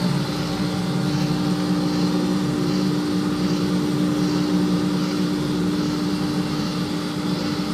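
Hobart LXiH undercounter dishwasher running a wash cycle: a steady motor hum with an even hiss above it.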